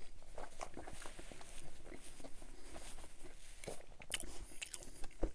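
Close-miked chewing of a mouthful of pan pizza folded around a chicken finger, with a run of small wet mouth clicks. A short paper-napkin rustle comes a little after four seconds in as the mouth is wiped.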